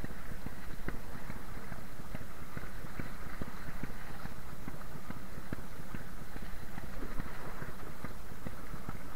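Spinning reel being cranked steadily, reeling in a hooked fish from the bottom, with fast irregular ticking and knocking over wind and sea noise.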